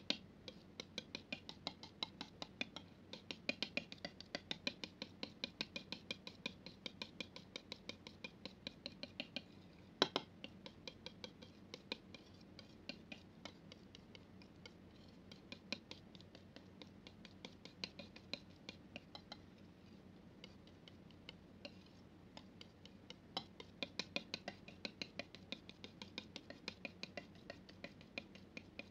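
Steel palette knife mixing thick paint on a flat surface: a run of wet, sticky clicks and scrapes, several a second, as the blade presses, spreads and lifts the paint, with one sharper click about ten seconds in.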